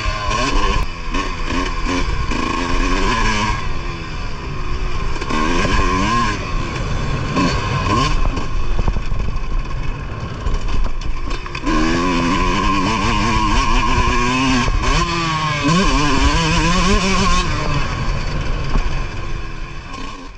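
Motocross bike engine being ridden hard, revving up and dropping off again and again as the rider accelerates and backs off through the track's corners and straights. It fades out at the very end.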